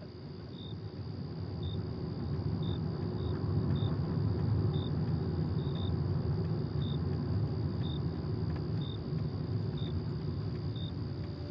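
Night ambience: a low steady rumble that swells over the first few seconds, with a cricket chirping about once a second over a thin, steady high tone.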